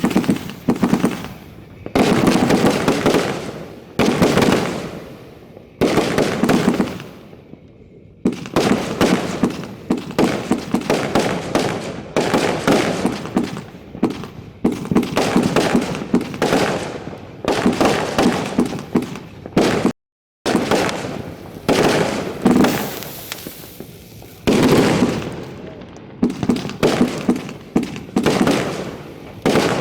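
Consumer aerial fireworks going off in quick succession at close range: sharp bangs every second or two, each trailing off, over a constant spatter of crackling pops. The sound cuts out completely for about half a second roughly two-thirds of the way through.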